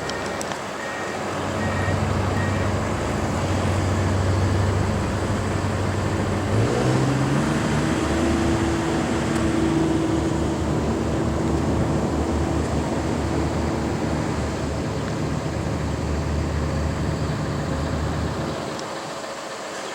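A motor vehicle's engine running with a steady low hum. Its pitch steps up about seven seconds in as it revs or picks up speed, and the low part fades near the end.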